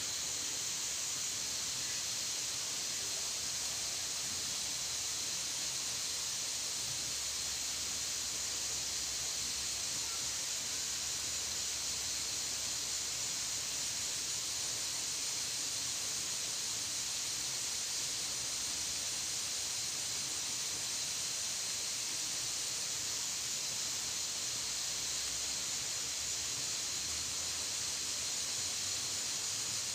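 Steady, high-pitched insect chorus, cicadas or crickets of the surrounding tropical undergrowth, droning without a break.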